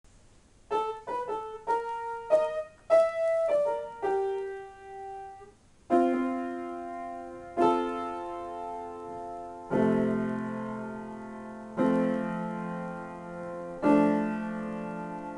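Solo grand piano improvising: a quick run of single notes in the first few seconds, then full chords struck about every two seconds, each left to ring and fade.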